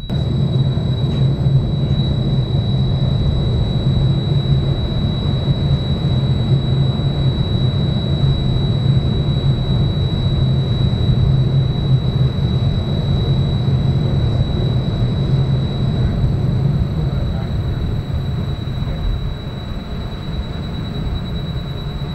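Rail-Veyor train of electrically driven two-wheeled railcars running on light-rail track through a drive station, a loud steady rumble with a thin steady high whine above it. The rumble eases a little near the end.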